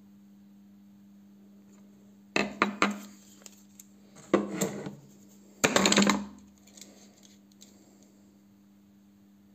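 Hand tools and a metal bolt handled on a tabletop: three bursts of clattering and knocking, about two and a half, four and a half and six seconds in, over a faint steady hum.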